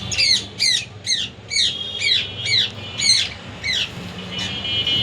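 Budgerigar chirping: a quick series of about nine sharp calls, each sweeping down in pitch, roughly two a second, then one fainter call.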